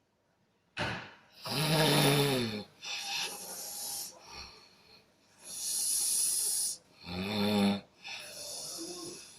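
A sleeping person snoring: two buzzing snores, the first dropping in pitch, each followed by a hissing breath out.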